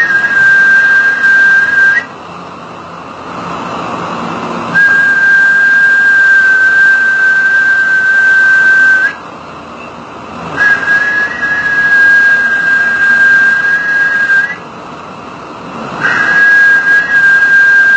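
A loud, high, steady whistling tone held at one pitch for several seconds at a time. It breaks off three times for a second or two, over a faint hiss.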